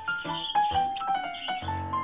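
Background instrumental music: a light tune of short, held notes stepping up and down over a bass line.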